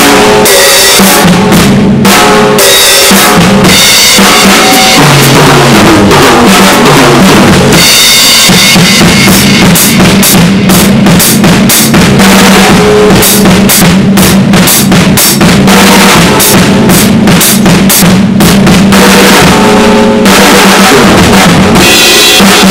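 Acoustic drum kit played continuously: snare, toms, bass drum and cymbals, in a dense, unbroken stream of hits. The recording is very loud throughout.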